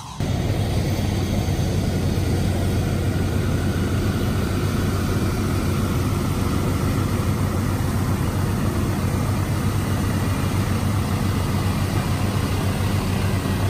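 The piston radial engines of a B-24J Liberator bomber (Pratt & Whitney R-1830 Twin Wasps) running steadily at low power on the ramp, with their propellers turning: a steady, loud, low drone.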